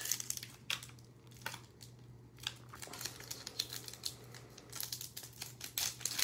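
Foil wrapper of a Topps Chrome trading-card pack crinkling and tearing as it is peeled open by hand, in scattered crackles that grow busier near the end. The wrapper resists opening the usual way.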